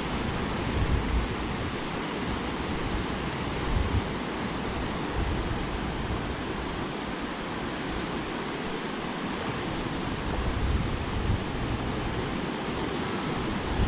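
Surf breaking and washing up a flat sandy beach, a steady hiss of noise, with wind buffeting the microphone in uneven low rumbles.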